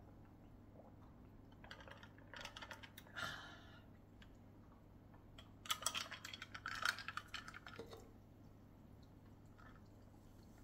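Drinking carbonated soda from a glass mug: two bursts of quick crackling clicks and gulps, the first about two seconds in and a louder one around six seconds in.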